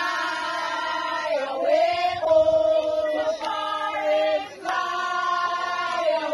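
A group of protesting teachers, mostly women, singing a protest chant together in long held notes, with short breaks between phrases.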